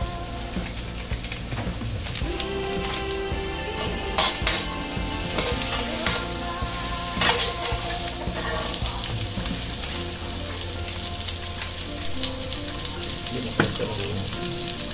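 Chopped onion and garlic sizzling in oil in a hammered carbon steel wok, stirred with a metal spoon. A handful of sharp scrapes and clinks of the spoon against the pan.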